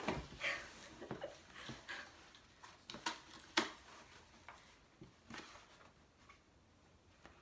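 Paper and packaging being handled: rustling and crinkling as cards and a paper treat bag come out of a cardboard box, with scattered light clicks and taps, the sharpest about three and a half seconds in.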